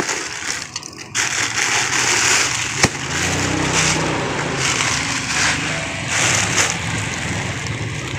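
Plastic sack and clear plastic wrapping rustling and crinkling as a taped plastic bag is cut open with scissors and pulled off packed clothes, with one sharp click about three seconds in. A low hum runs underneath from about three seconds in.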